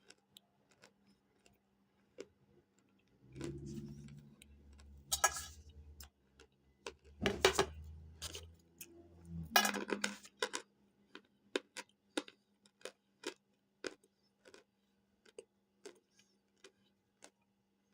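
Hard cornstarch chunks being bitten and chewed with a crisp crunch: a few loud bites in the first ten seconds, then a run of small sharp crackles about two or three a second.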